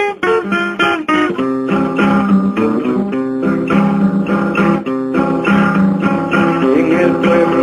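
Instrumental guitar music: acoustic guitar strummed and picked, with a steady bass line and no singing.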